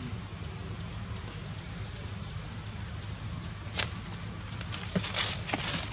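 Outdoor ambience with a steady low background noise and a run of short high chirps repeating about twice a second, a sharp tap a little before the 4-second mark, then light scuffing and rustling steps from about 5 seconds in.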